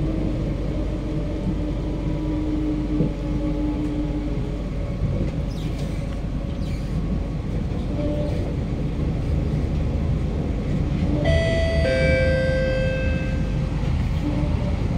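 KSF C151B electric metro train heard from inside the car, running with a steady rumble of wheels on rail and faint motor tones. About eleven seconds in, a set of steady higher tones joins it as the train nears the station.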